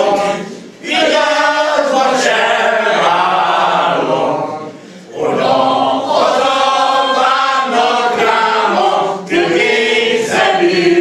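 A small group of men singing a Hungarian folk song together without instruments, with short breaths between phrases about a second in and near five seconds in.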